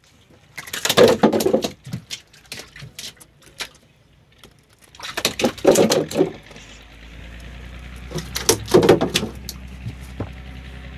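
Freshly caught ribbonfish flapping against the boat's wooden planks and hull, heard as three bursts of rapid tapping and knocking, about a second in, around the middle and near the end. A low steady hum comes in a little past halfway.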